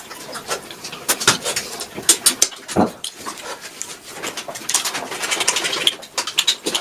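A person eating close to the microphone: a run of irregular smacking and chewing clicks, with a short hum-like vocal sound about three seconds in.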